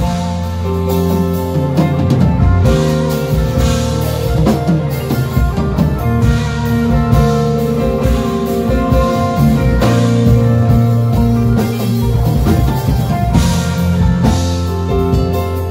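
A band playing together at rehearsal: chords on a synthesizer keyboard with electric guitar and a drum kit, drum and cymbal hits running through the music.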